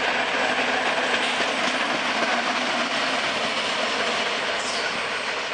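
FS class E.655 electric locomotive running light (no train behind it) past at close range, its wheels rolling on the rails. Loudest through the first few seconds as it goes by, then fading as it moves away.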